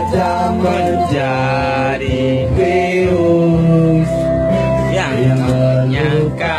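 Loud pop music with a voice singing over instrumental backing, played over a karaoke microphone and sound system.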